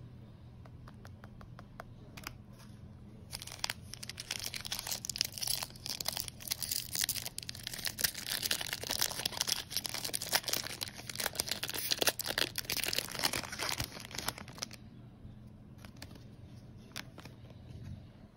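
A foil trading-card pack of 2024 Bowman Baseball being torn open and crinkled by hand: a dense crackly rustle that starts a few seconds in and stops a few seconds before the end. It is followed by a few fainter clicks as the cards are handled.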